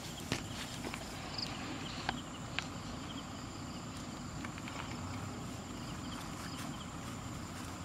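A steady high-pitched insect drone over background noise, with a few sharp clicks in the first three seconds.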